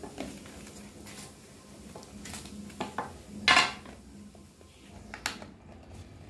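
A plastic tub of live superworms being opened by hand, with the tape on the lid peeled and scraped. Scattered clicks and scrapes of plastic, plus one loud, short rasping burst about three and a half seconds in.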